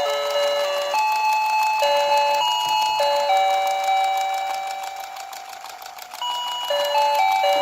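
A simple electronic tune of plain beeping notes, played one note at a time with some notes held longer. It fades quieter about five seconds in and picks up again about a second later.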